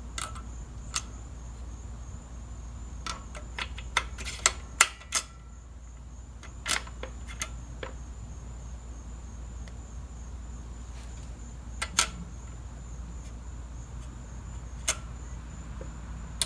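Scattered sharp metallic clicks and clinks as a small-engine valve and a valve spring compressor are handled, irregular and thickest around four to five seconds in, over a steady low hum.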